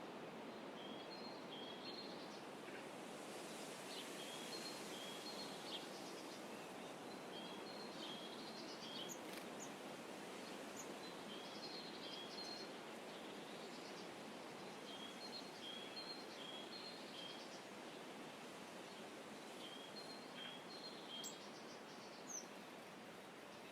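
Forest ambience: a steady, soft background hiss with a small bird repeatedly giving short high chirps in quick runs of three or four, every few seconds.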